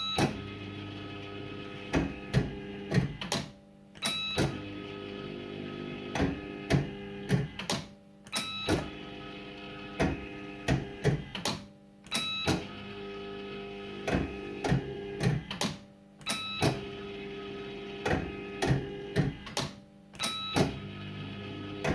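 Firecracker fruit machine sounding through repeated cycles about every four seconds: electronic beeping tones with sharp mechanical clicks and clunks, each cycle ending in a short lull.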